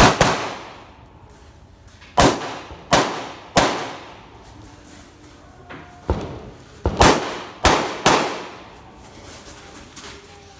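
Semi-automatic carbine shots during a practical shooting stage: about nine single shots, one at the start, three spaced evenly a little over two seconds in, then a quicker group around six to eight seconds in, each shot followed by a short ringing echo.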